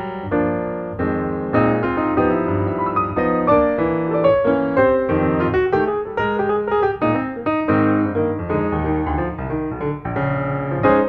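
Piano music with many quick notes and chords.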